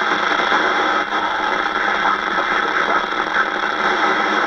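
CB radio speaker on UK FM channel 19 hissing with steady static, squelch open, as weak distant stations carried by summer skip struggle to break through: not very clear.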